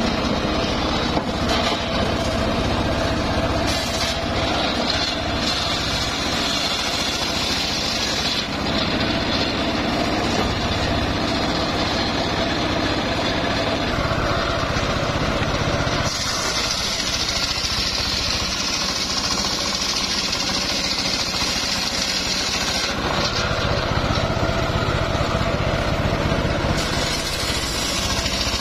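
Homemade circular sawmill ripping mahogany logs into rafter stock: the large saw blade and its drive running steadily as the blade cuts through the wood, with the tone shifting a few times as the cut changes.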